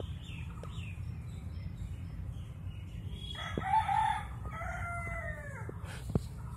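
A rooster crowing once: one long call of about two seconds, starting about halfway through and falling away at the end, over a steady low rumble.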